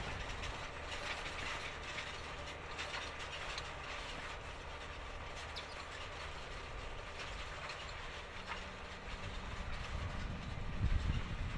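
John Deere 7280R tractor running steadily as it pulls an eight-furrow plough through stubble, with scattered clicks and knocks from the machinery. It grows louder near the end.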